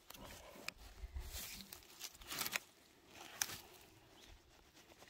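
Faint rustling and crunching of forest-floor litter and soil, with scattered small clicks and a brief louder scuff about two and a half seconds in.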